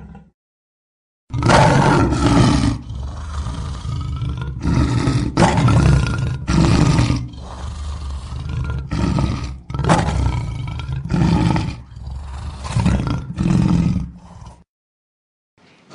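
A lion roaring in a long bout: about a dozen loud, deep roars, each under a second, some in quick pairs. It starts after a second of silence and stops shortly before the end.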